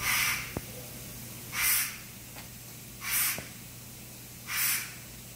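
Short hisses of air repeating about every one and a half seconds, four times, over a steady low machine hum, with a faint click or two.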